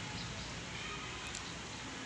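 Soft, steady hiss of light drizzle falling over the buildings, with a few faint high clicks about halfway through.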